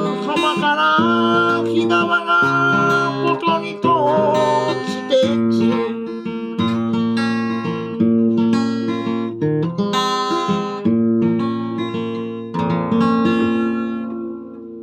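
Acoustic guitar playing a closing passage of struck chords, ending on a final chord that rings and fades away.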